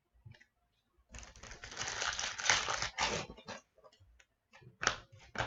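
Foil trading-card pack wrapper crinkling as it is torn open, for about two and a half seconds from a second in. It is followed by a few short crackles as the cards are handled.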